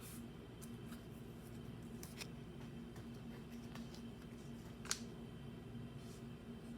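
Faint handling of Pokémon card packaging and cards: scattered small clicks and brief rustles, with one sharper click about five seconds in, over a steady low hum.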